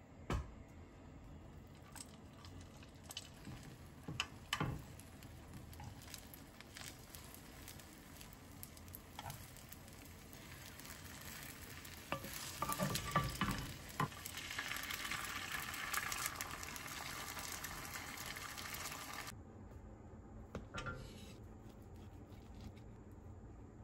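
Beaten egg sizzling in an oiled rectangular omelette pan as a wooden spatula scrapes and rolls it, with light taps and knocks of the spatula on the pan. The sizzling starts about ten seconds in and cuts off suddenly near twenty seconds; before it come only scattered light clicks.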